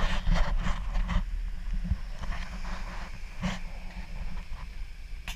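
Wind buffeting an action camera's microphone, a steady low rumble, with a few brief bumps as the camera is moved.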